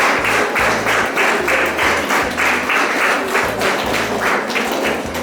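Audience clapping in a steady, fast rhythm, about five claps a second, in a large hall. It stops abruptly near the end.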